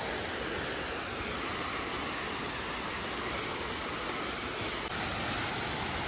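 Steady rush of falling water from Bambarakanda Falls, Sri Lanka's tallest waterfall, slightly louder about five seconds in.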